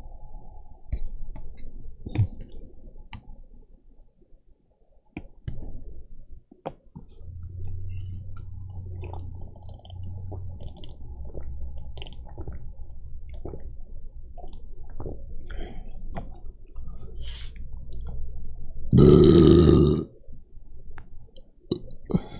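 A person burping after drinking soda, with small clicks in between. The loudest burp, about a second long, comes near the end.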